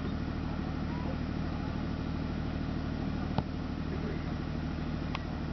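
A steady low hum made of several constant droning tones, with a single sharp click about three and a half seconds in.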